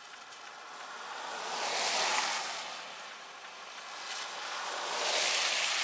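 Two vehicles passing one after the other on a slushy road, their tyres hissing through the wet slush, each swelling up and fading away.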